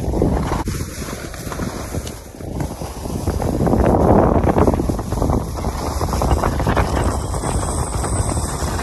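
Wind rushing over the microphone of a skier heading downhill, mixed with the hiss and scrape of skis on packed snow. It swells loudest about four seconds in.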